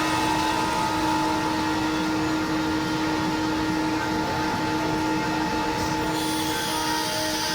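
CNC router spindle and dust-collection vacuum running steadily while machining clear acrylic, a constant whine over hiss. About six seconds in, a brighter, higher hiss joins.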